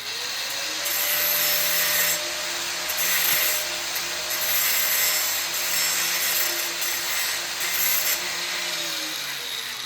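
Angle grinder cutting through metal: a steady harsh grinding with the motor's whine rising as it spins up at the start and falling away near the end.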